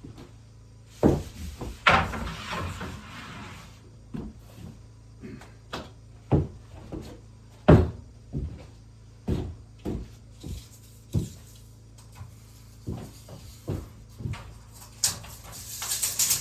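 Irregular knocks and thumps of wood being handled during carpentry, roughly one every second, with a short scraping noise about two seconds in and a hiss near the end.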